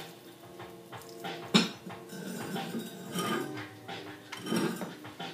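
Soldering-gun tip and a stick of beeswax knocking and scraping against the inside wall of a stoneware crock, with one sharp knock about a second and a half in and lighter clinks and scrapes after.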